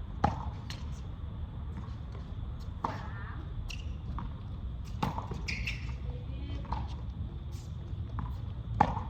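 Tennis ball knocks from hitting and bouncing during a practice drill: a handful of sharp knocks a second or two apart, the loudest just after the start and near the end, over a steady low rumble.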